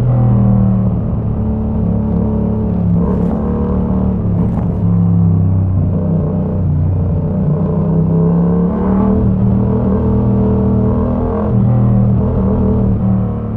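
Yamaha MT-07's 689 cc parallel-twin engine, breathing through a Mivv exhaust with the dB killer removed, running under way on the road. Its note steps up and down in pitch several times as the revs change.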